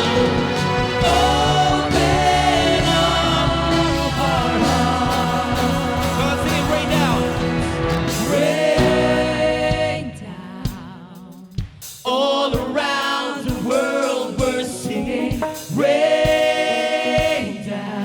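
Church worship band playing with singers. About ten seconds in the full band drops back, leaving the voices over a lighter accompaniment with steady beats.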